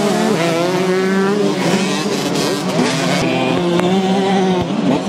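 Several small two-stroke motocross bikes racing, their engines revving up and down so that the rising and falling pitches overlap.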